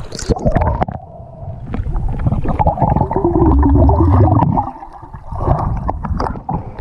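Action camera plunging under the lake surface with a splash, then the muffled underwater rumble and gurgling of swimmers moving close by. A wavering muffled tone rises out of the rumble about halfway through and cuts off suddenly.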